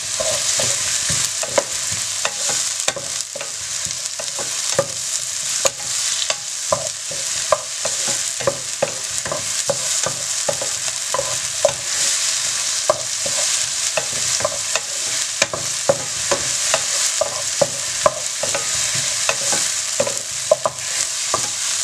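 Chopped onions and tomato sizzling in hot oil in a pan. They are stirred steadily, and the stirring utensil knocks against the pan about once a second.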